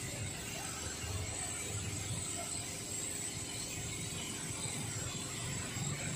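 Compressed-air gravity-feed spray gun hissing steadily as it sprays paint, with a low rumble underneath.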